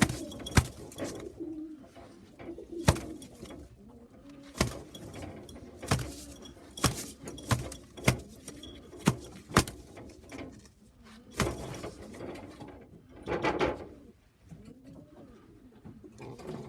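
Domestic pigeons cooing in the loft, with about ten irregular sharp knocks and a short rustling burst a little past the middle.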